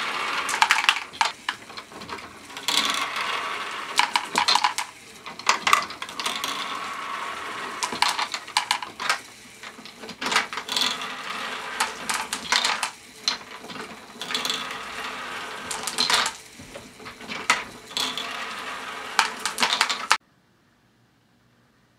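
LEGO Great Ball Contraption pump jack module running: its plastic mechanism turns while plastic balls clatter and rattle through it, with louder bursts of clatter about every two seconds. The sound cuts off suddenly about twenty seconds in.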